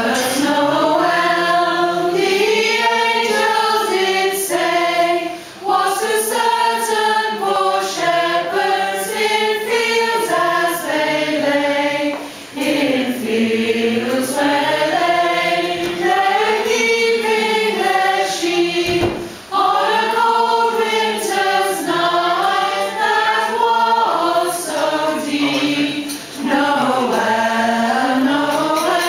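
Women's choir singing together, with short breaks for breath between phrases about every six or seven seconds.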